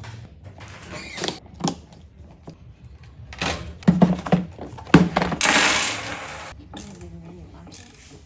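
Clicks, knocks and rattles of computer parts being handled and fitted together during a PC build, the loudest knocks about four and five seconds in, followed by a hiss lasting about a second.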